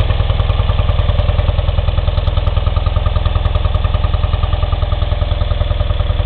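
1972 BMW R75/5's air-cooled flat-twin (boxer) engine idling steadily with an even, regular exhaust pulse.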